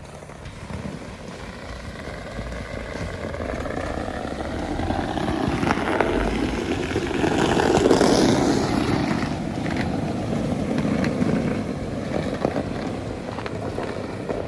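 Pickup truck driving slowly over a snow- and ice-covered trail, with engine and tyre noise. The sound swells to its loudest about eight seconds in, then eases off.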